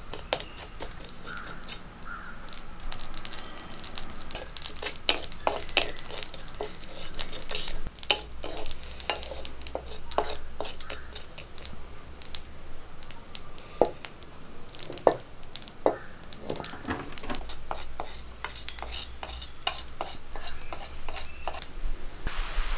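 Wooden spatula stirring and scraping mustard, fenugreek and cumin seeds as they dry-roast in an iron kadai, with many irregular sharp clicks and scrapes.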